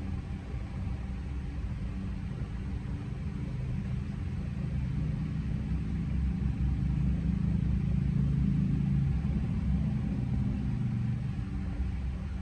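Steady low rumble of a running vehicle, with a low hum, swelling about halfway through and easing again near the end.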